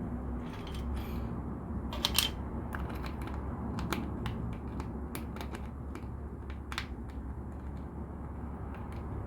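Plastic LEGO pieces clicking and clattering as they are handled and pressed together, in irregular sharp clicks, with the loudest cluster about two seconds in.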